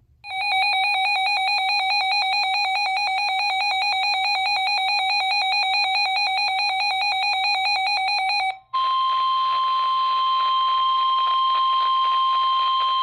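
A weather alert radio's built-in alarm beeping in a rapid, pulsing, buzzy pattern for about eight seconds. It then cuts to the steady NOAA Weather Radio warning alarm tone at about 1050 Hz, which announces an incoming flash flood warning.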